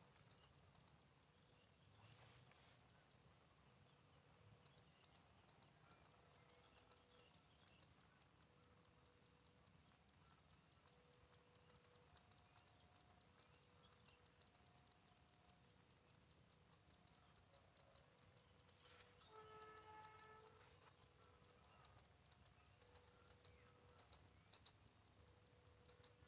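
Near silence: faint outdoor field ambience with scattered high, ticking chirps, and a brief distant call about twenty seconds in.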